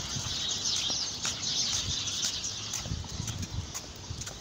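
A flock of small birds chirping, a dense chatter of many short high calls overlapping each other, thinning out near the end, over a low rumble.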